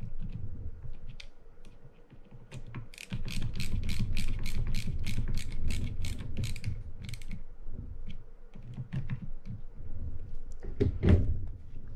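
Ratcheting screwdriver clicking in quick runs, about five clicks a second at its busiest, as reel side-plate screws are driven and locked down. There is a single louder knock near the end.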